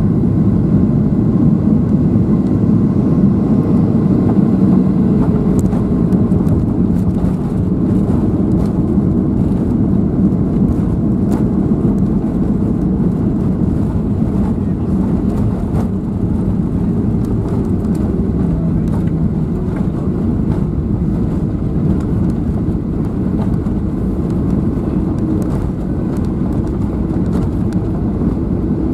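Cabin noise of a Boeing 737-700 with CFM56-7B engines, heard from a seat over the wing, during touchdown and the landing roll: a steady loud rush of engine and airflow noise that eases slightly in the second half. From a few seconds in there are light rattles and knocks as the wheels run along the runway.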